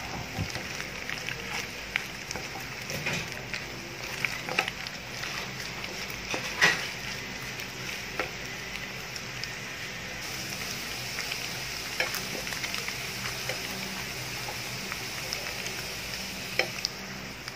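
Thin-sliced lamb sizzling steadily in a frying pan as it is stir-fried, with scattered clicks and scrapes of the wooden spatula against the pan; the sharpest knock comes a little over a third of the way in.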